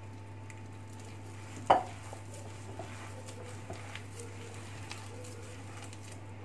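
A hand kneads and squeezes a crumbly ground-walnut dough in a glass bowl, with a soft scraping of dough against the glass. There is one sharp knock against the bowl about a second and a half in, then a few lighter taps, over a steady low hum.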